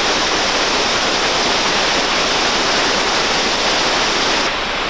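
Steady rush of a whitewater river, water pouring over rapids, with no speech over it.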